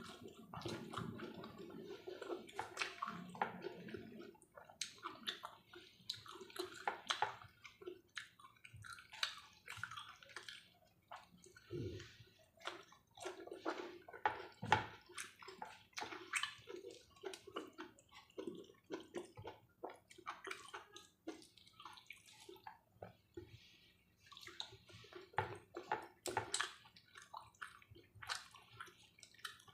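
Quiet eating sounds: irregular wet chewing and small clicks and taps while steamed vegetables with sambal are eaten, with a few louder soft knocks.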